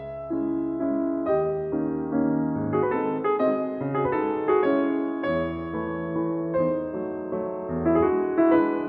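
Background piano music: a melody of single notes over held chords, at a moderate pace.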